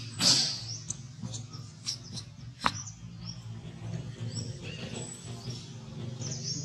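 Short high squeaks and chirps with a few sharp clicks, over a steady low hum; the loudest is a high squeal just after the start.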